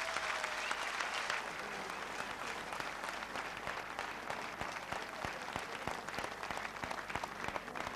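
Standing crowd of spectators applauding, a dense steady patter of many hands clapping.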